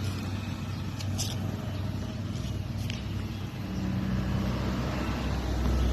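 A motor vehicle's engine running steadily, its low hum getting louder about two-thirds of the way through, with a few light clicks.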